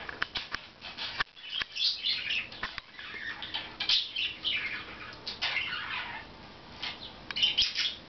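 Small pet parakeets chirping and chattering in quick, high twittering phrases, with a few sharp clicks in the first second.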